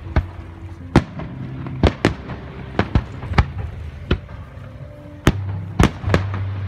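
Aerial firework shells bursting: a fast series of about a dozen sharp bangs, some in quick pairs, over a low steady hum.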